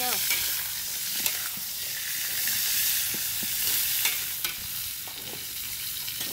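Lotus shoots sizzling as they stir-fry in hot oil in a wok, with occasional scrapes and taps of a metal spatula against the pan. The sizzle eases a little after about five seconds.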